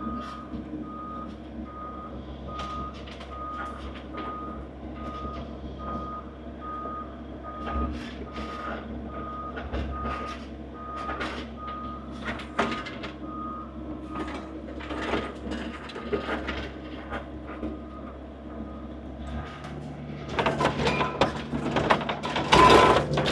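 Skid steer reversing, its backup alarm beeping about one and a half times a second over the running engine, with scattered clanks and cracks. Near the end the beeping stops, the engine note changes and a louder stretch of crunching noise follows.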